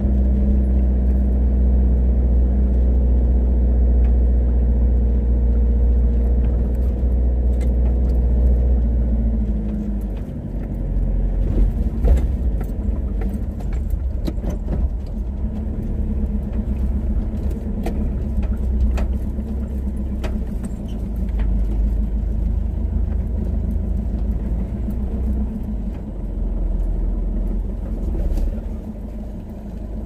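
Car driving slowly on a narrow road: a steady low engine and road hum for about the first ten seconds, then a rougher, uneven rumble with scattered light rattles and clicks.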